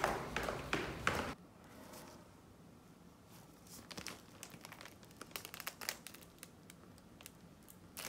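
Footsteps going down concrete stairs, a step about every half-second, stopping suddenly a little over a second in. Then a cellophane wrapper inside a paper gift bag crinkles in scattered bursts as the bag is handled.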